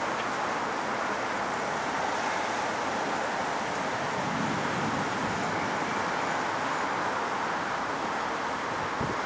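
Steady rushing noise of a thunderstorm's strong wind over a city, with a low rumble swelling briefly about four seconds in.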